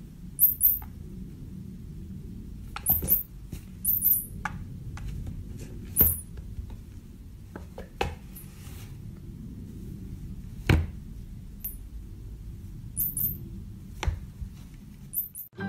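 A cat's paw tapping and knocking on a tablet's glass screen several times, one knock about two-thirds of the way through the loudest. Short, very high squeaks from a cat game on the tablet come every few seconds, over a low steady hum.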